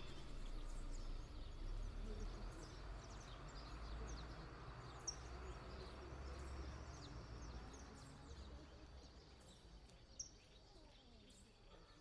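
Faint outdoor ambience: a low steady rumble with scattered short, high bird chirps. A sharper chirp stands out about halfway through and another near the end.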